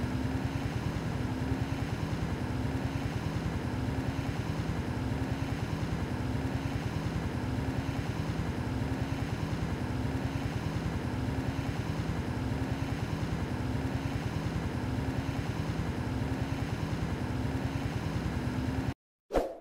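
An engine idling steadily with a rapid, even pulse, cutting off abruptly near the end.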